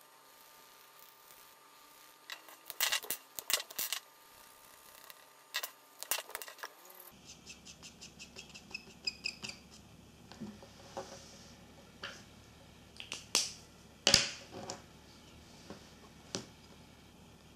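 Light plastic clicks and taps from felt-tip markers and a small UV-resin piece in its clear plastic mold being handled and drawn on, with a quick run of light ticks partway through and the sharpest click about two-thirds of the way in.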